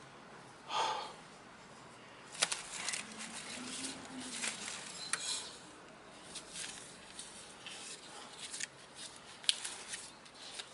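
Scattered light clicks and rattles of small metal parts and tools being handled, with a sharper click about two and a half seconds in and another near the end.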